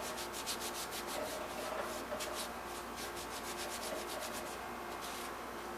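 Quick back-and-forth scrubbing strokes against the bicycle's painted steel frame, about four or five a second, as the serial number is rubbed clean; the strokes thin out and stop shortly before the end.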